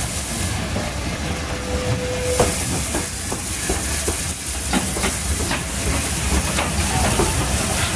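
Steam locomotive and its train rolling slowly into a station: a steady hiss of steam, a brief squeal about two seconds in, then irregular clicking and clanking of wheels over the rail joints.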